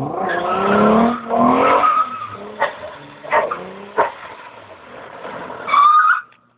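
Nissan 300ZX's V6 engine revving hard, climbing in pitch, as the car slides sideways on wet asphalt, with tyres skidding and a brief tyre squeal near the end.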